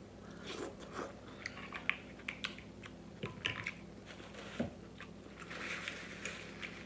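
Close-up mouth sounds of eating snow crab meat: wet chewing with sharp lip smacks and clicks scattered throughout. Near the end comes a soft rustle of a paper napkin wiping the mouth.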